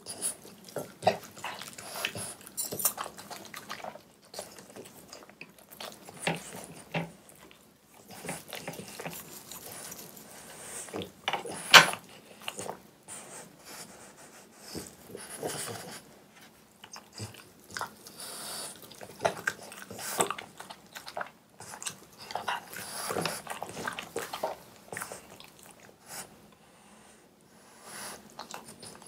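French bulldog eating close to the microphone: irregular chewing, biting and lip-smacking on soft homemade dog food. One sharp click stands out a little before halfway.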